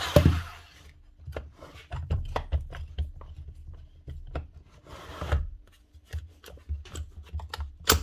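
A Bosch GSH4 hammer's motor spins down as it is switched off at the start. Then come irregular clicks and knocks as the heavy tool is handled on a workbench and a chisel bit is pushed into its chuck.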